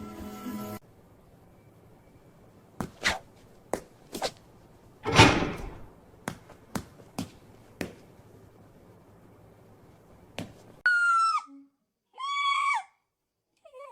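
Scattered knocks and taps indoors, with one loud thud about five seconds in, then two short, high-pitched cries that fall in pitch near the end.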